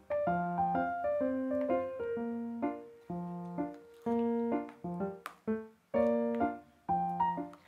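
Background piano music: a light melody of single notes and chords, each note struck and then fading, in a steady, repeating rhythm.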